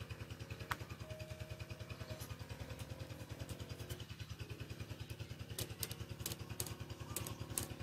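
Faint, steady, low pulsing hum of an engine idling, about ten beats a second. A few light clicks come from the plastic RC crawler chassis being handled: one early and a cluster near the end.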